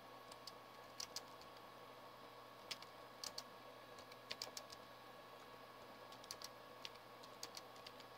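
Typing on a Bluetooth computer keyboard: faint key clicks, irregularly spaced, a few at a time.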